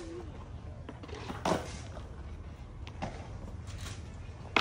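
Distant skateboard and scooter wheels and decks knocking on concrete: one duller thud about one and a half seconds in and a few sharp clacks later, over a steady low rumble.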